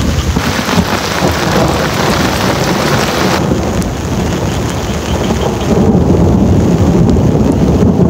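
Heavy rain falling steadily, with a low rumble underneath; the sound changes character about three and a half seconds in and grows louder and deeper about six seconds in.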